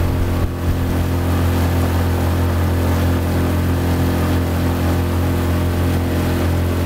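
Small motor driving an aluminum canoe at steady speed: a constant low engine drone that briefly drops about half a second in, with water rushing along the hull.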